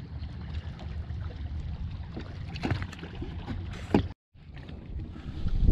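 Steady low rumble of a fishing boat on the water with wind on the microphone and a few faint clicks. The sound drops out completely for a moment about four seconds in.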